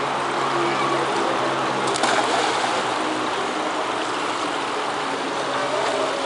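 Steady rushing water noise of an indoor swimming pool, with a splash about two seconds in as a child goes into the water.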